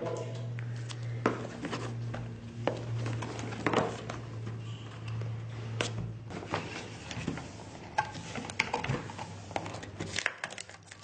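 A phone's cardboard retail box being opened and its packaging handled: scattered taps, clicks, scrapes and rustles of cardboard and plastic, with a steady low hum under the first half.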